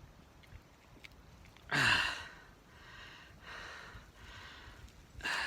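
A man's heavy sigh, about two seconds in, falling in pitch, followed by several softer breaths and another breath near the end.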